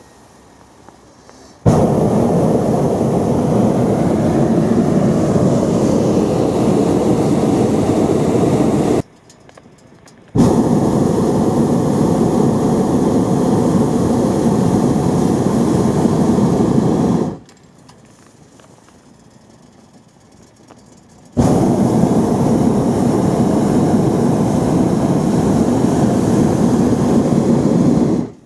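Hot-air balloon's propane burner firing in three long blasts of about seven seconds each, each starting and stopping abruptly, with short quieter gaps between.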